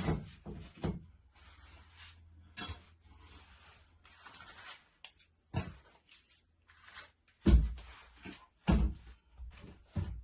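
Household handling noises, as of someone fetching tools: scattered knocks and clunks with bits of rustling. Two heavier thumps come about seven and a half and nine seconds in.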